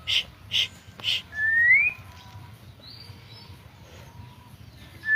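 White-rumped shama (murai batu) singing: a quick run of sharp chip notes, about four a second, then a rising whistle. A quieter pause with a faint high note follows, and a rising whistle starts again at the very end.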